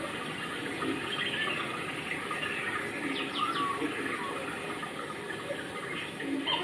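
Steady rush of running water, with a quick run of three short, high, falling chirps about three seconds in.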